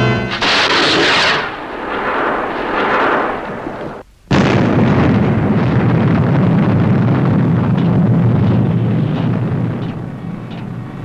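Sound-effect explosions of an interceptor missile destroying an enemy missile. First a rushing blast fades over about three seconds. Then, after a brief gap, a sudden loud explosion comes in whose deep rumble slowly dies away.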